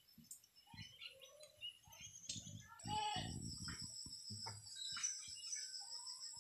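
Faint small birds chirping, with a steady high insect drone, like crickets, setting in about three seconds in, and a few low bumps.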